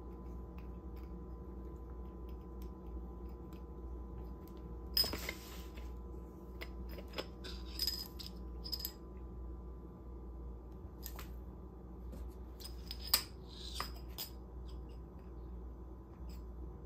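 Metal bottle cap clinking and skittering across a tile floor as a cat bats it. The clatters come in short bursts: about five seconds in, around eight seconds, and loudest a little after thirteen seconds.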